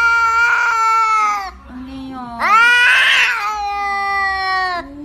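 A cat yowling: two long drawn-out meows, each rising at the start, held, then falling away at the end, with a short lower call between them.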